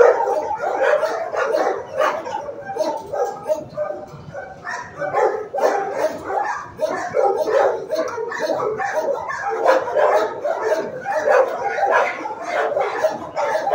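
Many shelter dogs barking and yelping at once in a kennel block: a dense, unbroken din of overlapping barks.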